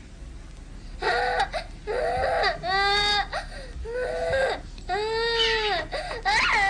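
A young girl crying and wailing in a string of long, high sobbing cries with short breaks between them, starting about a second in.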